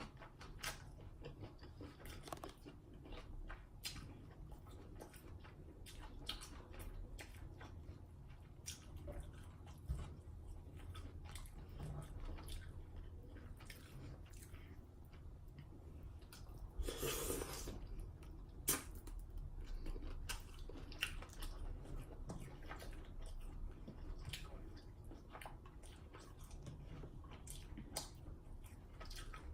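Close-miked chewing and wet lip smacking of someone eating a seafood boil, in irregular small clicks, with one longer wet sound a little past halfway.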